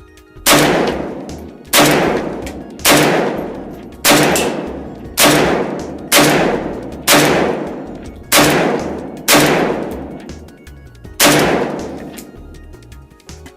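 Ten single shots from a Zastava O-PAP semi-automatic AK-pattern rifle in 7.62×39, about one a second with a longer pause before the last, each dying away briefly after the crack. The magazine feeds every round without a jam.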